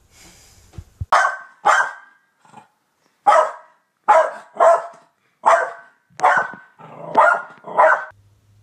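A small dog barking, about nine sharp barks in a row, spaced roughly half a second to a second apart.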